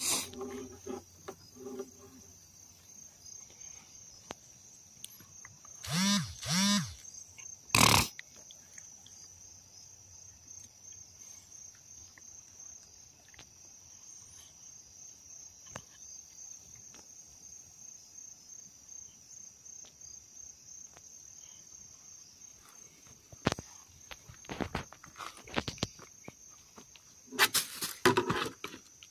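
Crickets chirping in a steady, high, even trill. About six seconds in come two short pitched calls that rise and fall, a single loud knock follows about eight seconds in, and near the end there is a cluster of sharp knocks.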